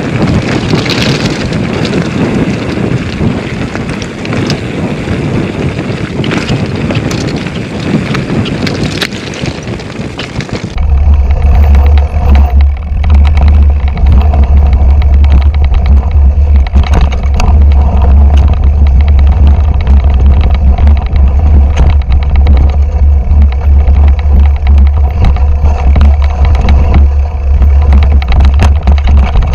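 Wind buffeting an action camera's microphone over the rattle and rumble of a 2008 Intense Tracer mountain bike on a rough, rocky descent. About 11 seconds in, the sound changes abruptly to a heavy steady low rumble with constant sharp clicks and knocks from the trail.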